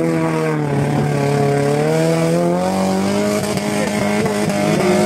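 Off-road 4x4 engine held at high revs under heavy load while a mud-stuck vehicle is towed out of a flooded pit. The pitch sags slightly, then climbs about halfway through and holds higher.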